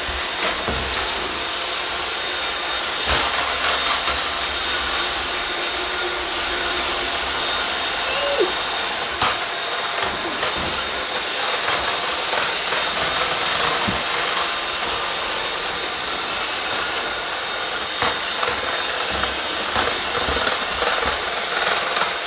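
Small robot vacuum-style robots driving on a hardwood floor: a steady whirring of their motors, with a few sharp clicks and knocks.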